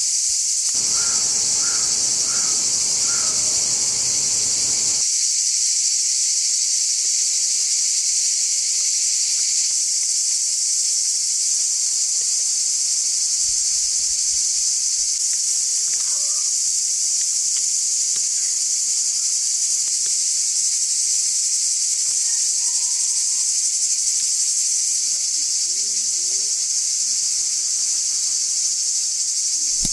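A steady, high-pitched insect chorus, unbroken and even in level.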